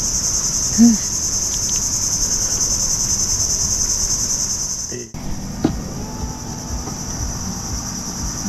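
A steady, high-pitched insect drone. It breaks off abruptly about five seconds in, then carries on a little fainter over a low rumble and a few faint clicks.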